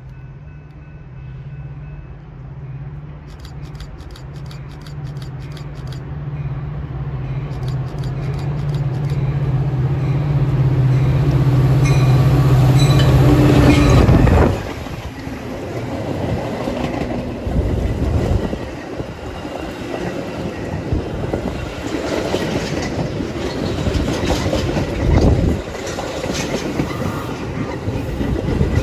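A diesel-hauled train passes close by. The locomotive's engine grows steadily louder for about fourteen seconds and drops off suddenly as it goes past, followed by the rumble and clickety-clack of the cars rolling by.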